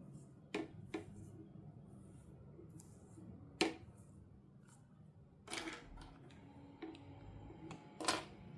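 Small plastic toy parts being handled, giving a few sharp, separate clicks and taps; the loudest comes a little before the middle, with a short cluster about two-thirds of the way in.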